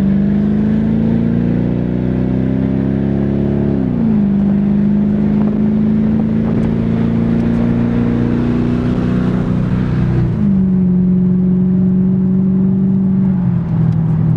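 Mercedes-Benz S55 AMG's 5.4-litre V8 heard from inside the cabin under way: the engine note climbs, drops sharply about four seconds in as the automatic gearbox shifts up, then holds fairly steady with a step up near ten seconds and a drop near the end, over steady road and tyre rumble.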